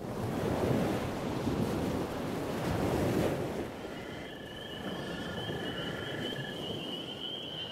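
Sea waves washing in, loudest in the first three seconds or so and then easing off. About four seconds in, a thin, steady high-pitched trill starts over the quieter surf.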